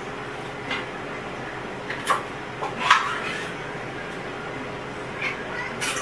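Short, scattered clinks and knocks of dishes and utensils as cat food is prepared on a kitchen counter, about five sharp sounds, the loudest about three seconds in.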